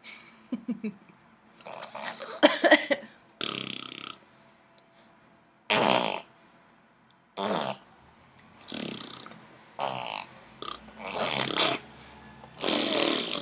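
A baby blowing raspberries, lips sputtering in a string of short bursts every second or two, some with a bit of voice mixed in.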